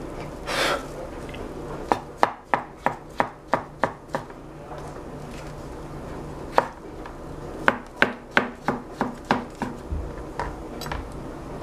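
Chef's knife slicing shiitake mushrooms on a plastic cutting board: sharp knocks of the blade on the board, about four a second, in two quick runs of strokes with a short pause between.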